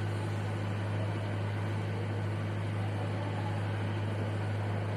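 A steady low hum with a faint even hiss over it, unchanging throughout; no marker strokes stand out.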